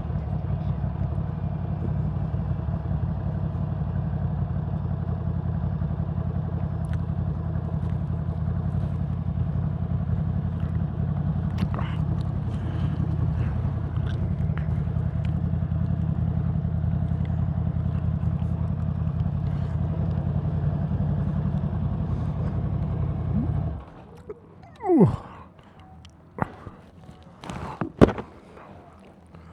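A vehicle's steady low running rumble, which cuts off abruptly about four-fifths of the way through. After it, a quieter stretch with a short falling squeak and a few sharp clicks.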